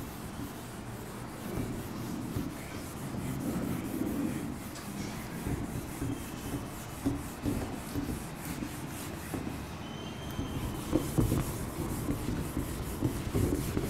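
Whiteboard duster rubbed back and forth across a whiteboard, wiping off marker writing in a run of uneven scraping strokes, a few of them louder in the second half.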